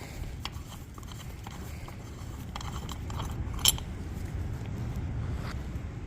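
Scattered light clicks and knocks of hand tools and metal parts being worked loose on a tractor's brake arm, with one sharper click about three and a half seconds in, over a steady low rumble.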